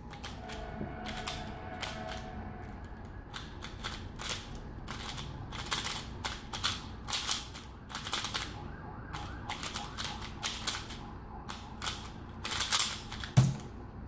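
Rapid plastic clicking and clacking of a Valk 3x3 speedcube's layers being turned fast during a speedsolve, in irregular runs of quick turns. A heavier knock near the end as the solve finishes.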